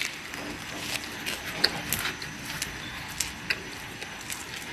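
A person chewing flatbread close to the microphone: irregular soft clicks and mouth smacks, with a sharper click right at the start.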